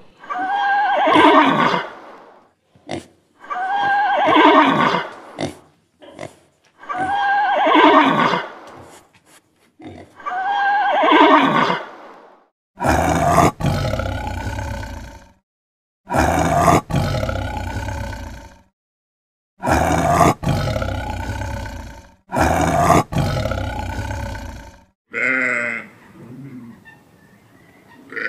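African elephant trumpeting four times, about three and a half seconds apart, followed by a leopard growling in five long, harsh, deep roars. A few fainter short calls come near the end.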